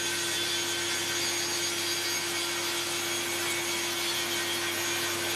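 Sliding table saw with an 80-tooth blade running steadily with an even hum while a panel is fed along its sliding carriage for a light trim cut.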